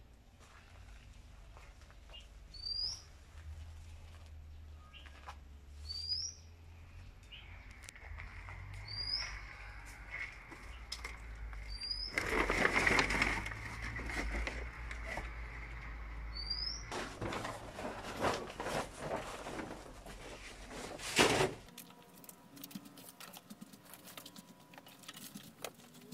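A bird repeating a short high chirp about every three seconds, over a low background rumble, with two stretches of loud rustling noise in the middle.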